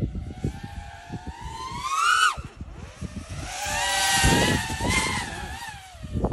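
FPV quadcopter's brushless motors whining: the pitch climbs for about two seconds and drops sharply as the throttle is cut, then rises again about a second later with a louder whine and rush of propeller air that wavers before easing off near the end.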